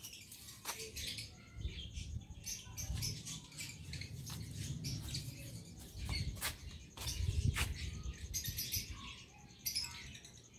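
Birds chirping in the background, with a low rumble on the microphone and a few sharp clicks.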